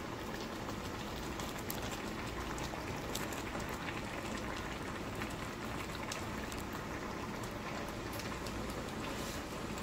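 Squid simmering in a stainless steel skillet, the liquid bubbling steadily with many small pops.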